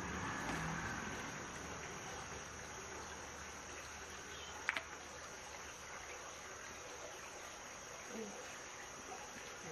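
Steady high insect chirring with a soft hiss of shallow stream water beneath it, and one sharp click about halfway through.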